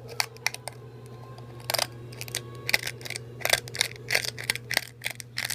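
Small hand-cranked coffee grinder being turned, crushing whole coffee beans: an uneven run of crunches and clicks.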